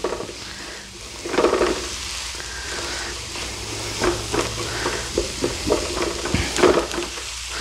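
Diced onions, celery and apple sizzling in butter and olive oil in a pan, with a utensil stirring and scraping through them in irregular strokes, loudest about a second and a half in and again near the end.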